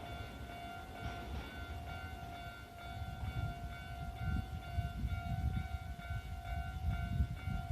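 Level-crossing warning alarm ringing steadily, over the low rumble of a Kintetsu 8600 series train that grows louder from about three seconds in.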